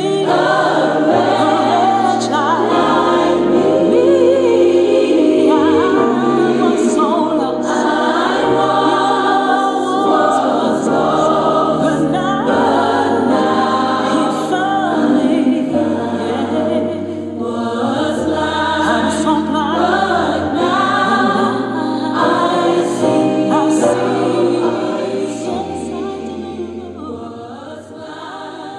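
Choir singing a hymn over long held low notes, fading out over the last few seconds.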